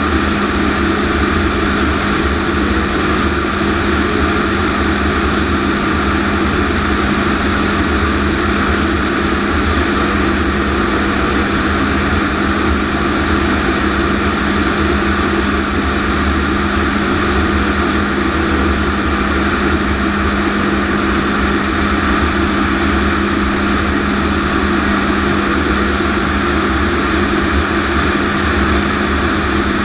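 Lockheed T-33 jet trainer's turbojet engine and slipstream heard from inside the closed cockpit in flight: a loud, unchanging drone with a constant hum under it.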